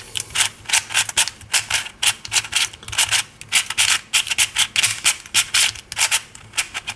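A dry, unlubricated Fangshi Shuang Ren 3x3 speed cube being turned through a scramble. Its plastic layers scrape and click in a fast, uneven run of short turns, several a second.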